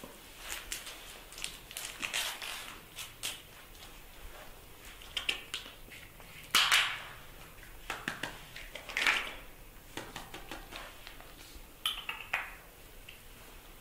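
Baby macaque sucking and smacking on a milk bottle: irregular short clicks and little squeaks, the loudest about six and a half seconds in.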